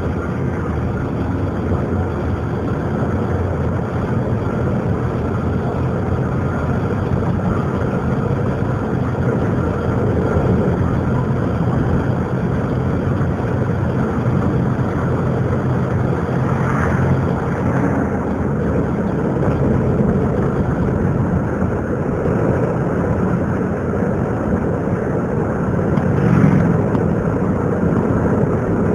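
Car on the move heard from inside the cabin: steady engine and road noise, with brief swells about 17 seconds in and again near the end.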